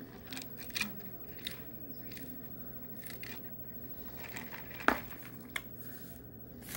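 Quiet mouth and straw sounds of someone drinking Sprite from a fountain cup through a straw: scattered small clicks, with a single louder click about five seconds in. A low steady hum runs underneath.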